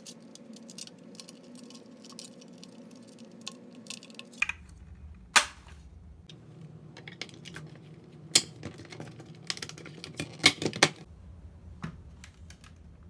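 Scattered sharp clicks and light knocks of hard plastic parts and hardware being handled while a vacuum wall mount is fitted, over a faint steady hum. A handful of louder single clicks stand out in the second half.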